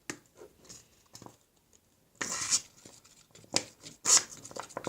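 Light handling noises from slime-making: scattered clicks and taps, with a short scraping rustle about two seconds in and a few sharper clicks near the end.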